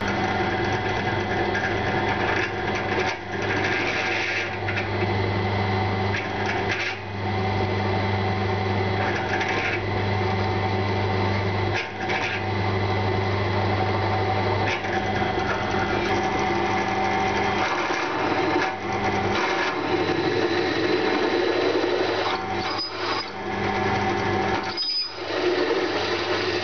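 Bench drill press running with a steady motor hum as its bit drills holes in a metal lathe chuck backplate. The sound dips briefly a few times.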